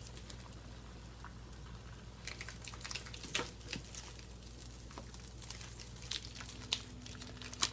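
Light clicks and taps of cooking items being handled, scattered and irregular, starting about two seconds in, over a steady low hum.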